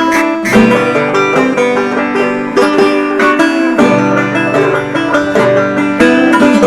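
Background music played on plucked string instruments, with a fast run of picked notes throughout.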